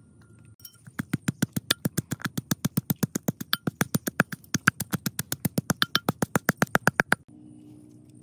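Stone pestle pounding shallots in a stone mortar: fast, even strikes, about six a second, which stop about seven seconds in.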